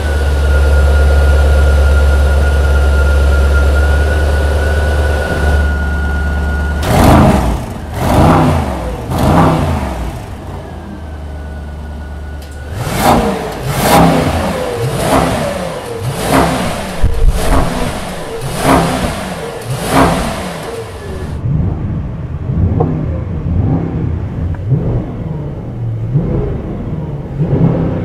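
Mercedes-AMG S 63 E Performance's twin-turbo V8 exhaust idling with a deep steady drone, then revved in short blips, about three and then about seven in quick succession. Near the end the revs are heard muffled from inside the cabin.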